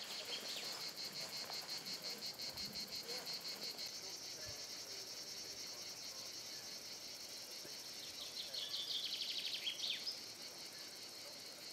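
Steady, high-pitched chirring of insects in grassland. A louder, faster-pulsed chirring joins about eight seconds in and stops near ten seconds.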